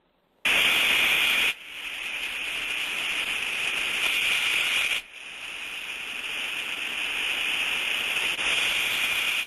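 Ultrasonic-detector recording of a good inverted bucket steam trap cycling on and off, played sped up: a hiss of condensate discharge that starts suddenly about half a second in, steps down and swells again, breaks off briefly around the middle, then swells again. The distinct on-off cycle is the sign of a healthy trap, not a blowing one.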